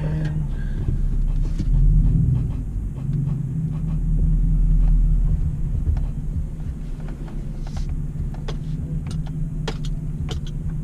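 Pickup truck engine running at low speed, heard from inside the cab while the truck is slowly backed up. The low rumble swells about two seconds in and again around four to five seconds in as the engine is given gas.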